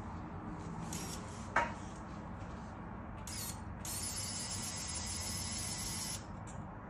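Small motor of an RC truck's rollback bed whirring as the flatbed tilts back into a ramp: a brief run about three seconds in, then a steady run of about two seconds that stops abruptly. A sharp click about a second and a half in.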